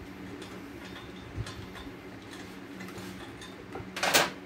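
Light scattered clicks of a hand tool working the nut off a front wheel axle of a homemade RC car, over a low steady hum, with a sharp metallic clatter about four seconds in.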